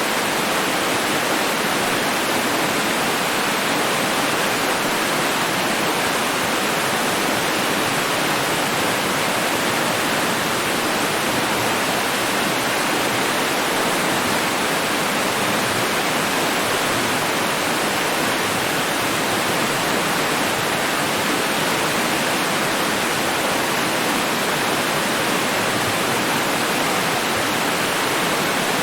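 Running water, a steady even rushing that does not change.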